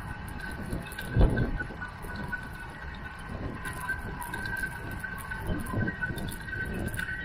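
Riding noise from a bicycle-mounted camera: low wind rumble on the microphone with traffic on the road alongside, and a steady high whine over it. A sharp thump sounds about a second in, the loudest moment.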